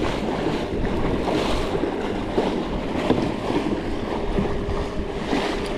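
Water rushing and splashing along the hull of a fishing kayak under way at speed, with wind buffeting the microphone. A faint steady hum joins about four seconds in.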